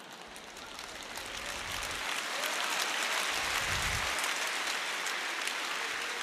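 Large audience applauding, the clapping building up over the first two or three seconds and then holding.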